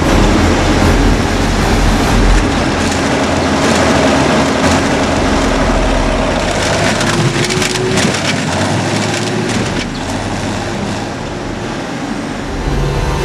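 Large tractor's engine running under load as it drives up onto a car. The car's metal body crunches and cracks beneath its wheels, with a cluster of sharp cracks about halfway through.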